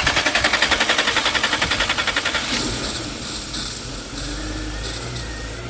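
Car engine being cranked by the starter, with fast even pulses for about two and a half seconds. It then catches and runs more steadily, running only on brake cleaner sprayed into the throttle body, in a car that otherwise cranks but won't start.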